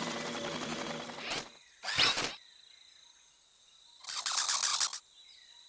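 Cartoon propeller hats whirring steadily until about a second and a half in, then a brief squeak. About four seconds in, a cartoon squirrel gives a rapid chattering trill lasting about a second.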